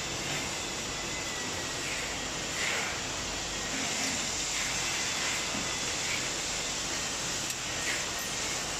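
Steady hiss of factory background noise, with faint short high-pitched blips recurring about once a second.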